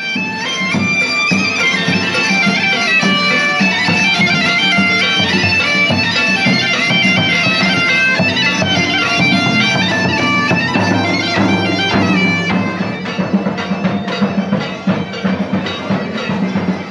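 Bagpipes playing a lively tune over their steady drone, with a drum beating along. About three-quarters of the way through, the pipe melody stops and irregular knocks and clatter carry on.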